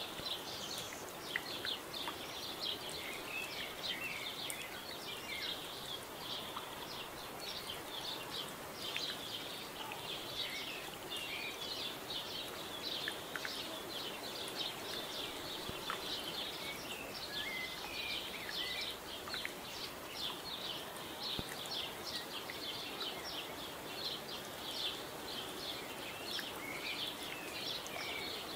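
A dense, steady background of many small birds chirping, rapid short high notes running on without a break, over a faint outdoor hiss.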